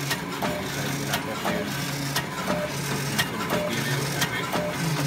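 James Burn automatic paper punching machine running, cycling with a regular clack about three times a second over the steady hum of its motor.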